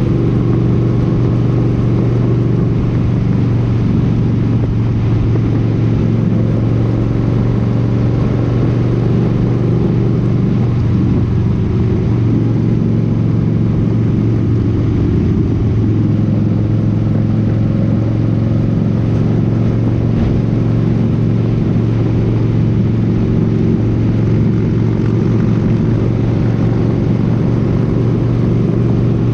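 Motorcycle engine running at a steady cruising speed, with wind and road noise over it; the engine note wavers briefly around the middle before settling again.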